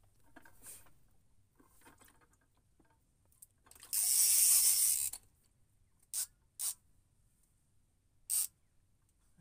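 Fishing reel's drag buzzing as a hooked fish pulls line off: one long run of about a second and a half, then three short bursts near the end.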